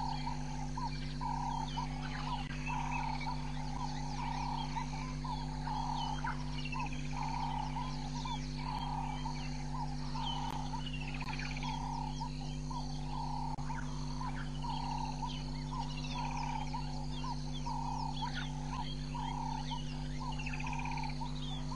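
Outdoor wildlife chorus: many birds chirping and trilling, over one call repeated in an even rhythm about three times every two seconds, with a steady low hum beneath.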